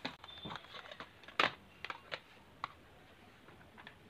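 Twisted latex modelling balloons of a balloon dog being handled and turned, giving a few soft, scattered squeaks and clicks. The loudest comes about a second and a half in.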